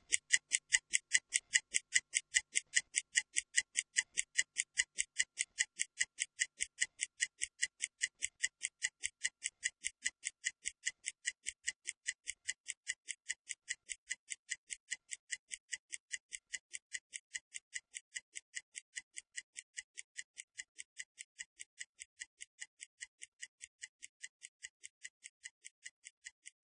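Stopwatch ticking sound effect timing a 30-second rest period: crisp, high-pitched ticks about four a second, growing steadily fainter.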